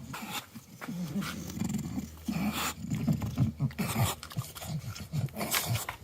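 A dog sniffing about, with many short, irregular low vocal sounds mixed in.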